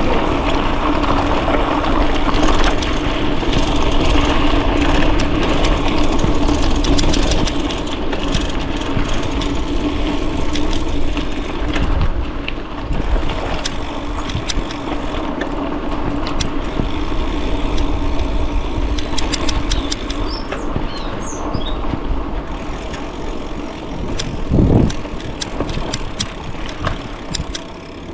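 Bicycle rolling along a bumpy forest trail: a steady rush of tyre and riding noise with frequent clicks and rattles from the bike over the bumps, and a single low thump near the end.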